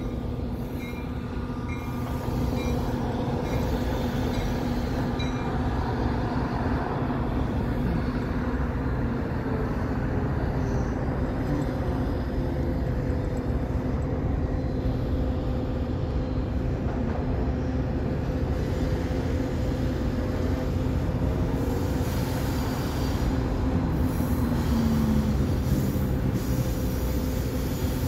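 Metra commuter train of stainless-steel bilevel gallery cars rolling slowly past on the yard tracks below, a steady rumble of wheels on rail with a held hum and some wheel squeal. A repeated high ding sounds during the first five seconds.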